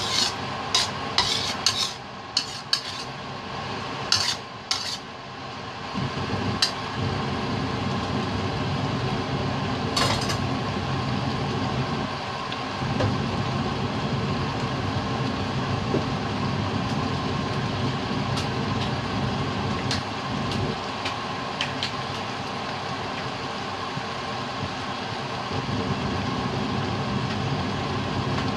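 Spatula scraping and clacking against a stainless-steel wok while stirring a thick cream sauce, a quick run of knocks in the first few seconds. Then a steady hum carries on while the sauce simmers undisturbed.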